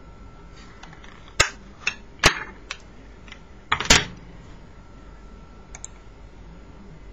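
Zippo windproof lighter being handled: a handful of sharp metal clicks from its hinged lid and flint wheel, the loudest a little under four seconds in.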